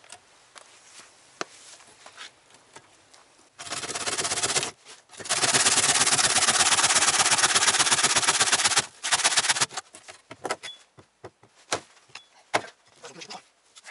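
Hand saw cutting through a frozen cow's skull, a fast rasping run of strokes starting about four seconds in and lasting until nearly ten seconds, with one brief break. The head is frozen solid, so the saw is grinding through frozen bone. Scattered light knocks and clicks follow near the end.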